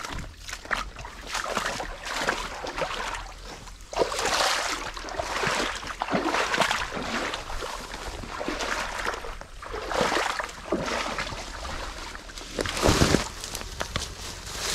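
Footsteps and rustling as someone walks through wet forest undergrowth, in irregular swishes every second or two, the loudest near the end.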